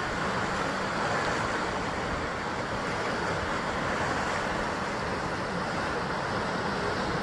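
Surf washing against a rocky basalt shore, a steady rush of waves with no distinct breaks or crashes.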